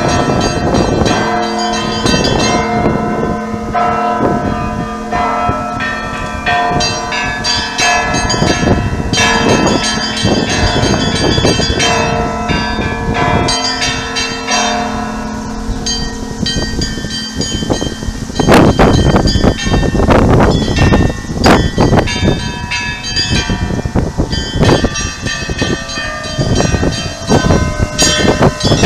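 Church bells rung together in a continuous peal: smaller bells struck in quick succession over lingering lower tones, with a spell of heavier, denser strikes about two-thirds of the way through.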